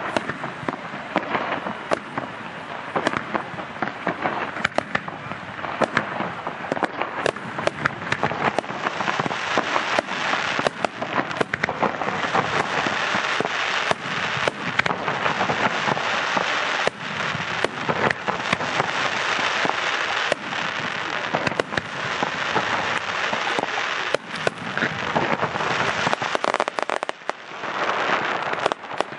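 Aerial fireworks display: shells bursting with many sharp bangs in quick succession, one after another without a break, with a short lull near the end.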